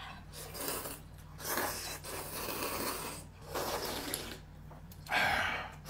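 Someone eating noisily: four rough, noisy bursts, each about a second long.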